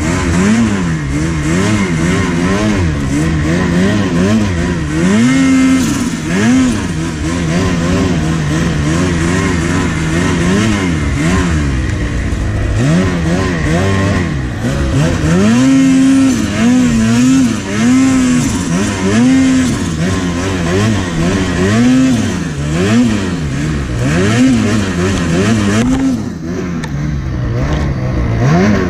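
Two-stroke mountain snowmobile engine revving hard and easing off again and again as the sled is ridden through deep powder, its pitch rising and falling with each throttle blip. The revs drop briefly near the end.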